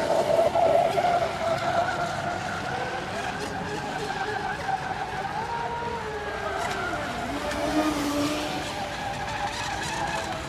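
A radio-controlled speedboat's motor whines at a high pitch as the boat runs fast across the water, the pitch rising and falling with the throttle.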